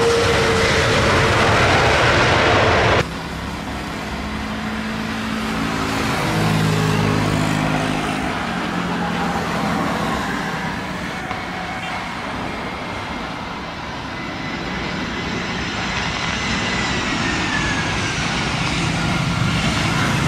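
Jet airliner noise. For about the first three seconds it is the loud, steady noise of an Airbus A330's engines as it touches down. After an abrupt cut comes the quieter, steady noise of an Airbus A320 on final approach, swelling and fading, with a high engine whine that slowly falls in pitch in the second half.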